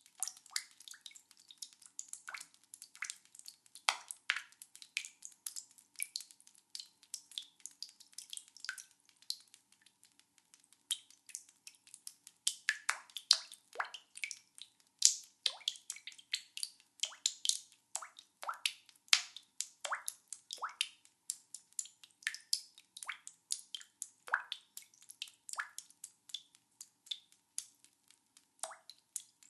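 Water dripping fast, several drops a second at an uneven pace, some drops landing with a short pitched ring.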